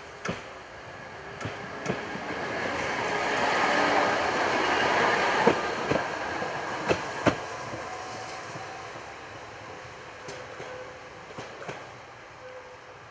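CKD Tatra T6A2 tram running past on ballasted track. The rumble rises to its loudest about four to five seconds in, then fades as the tram moves away. The wheels click sharply in pairs over the rail joints.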